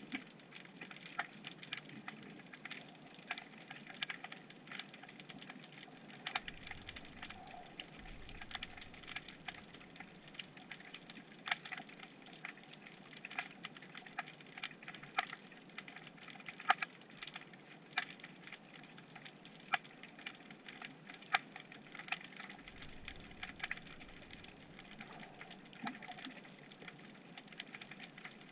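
Underwater crackle picked up by a camera on the seabed: irregular sharp clicks, several a second, over a steady hiss, typical of snapping shrimp.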